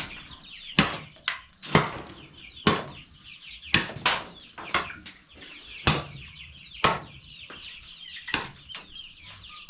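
Hammer driving nails into wood, about one sharp blow a second with uneven gaps, over the constant high cheeping of a flock of chicks.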